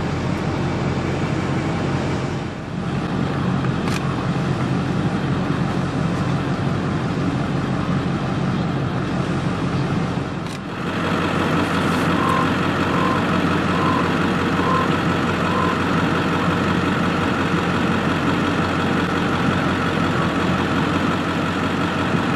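A car engine idling with a steady hum, dipping briefly twice.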